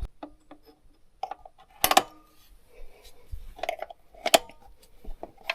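Screws and a hand tool clicking and clinking on metal as the three screws holding a moped cover are undone. There are a few sharper knocks, the loudest about two seconds in and about four seconds in.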